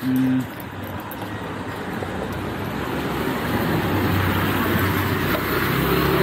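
Road traffic: a motor vehicle's noise building steadily louder over several seconds, after a short low tone at the very start.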